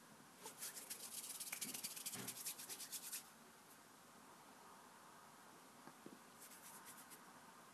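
Hands rubbing or working something off-camera: about three seconds of fine, rapid scratchy rustling starting about half a second in, then a few faint clicks near the end.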